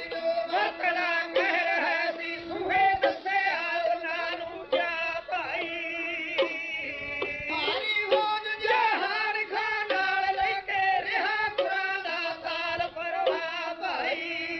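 Punjabi dhadi music: sung melody with instrumental accompaniment, the melodic lines wavering with heavy vibrato.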